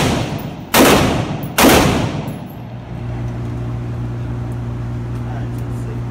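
AR-15 rifle firing two shots less than a second apart, each echoing off the walls of an indoor range; then the firing stops and a steady low hum remains.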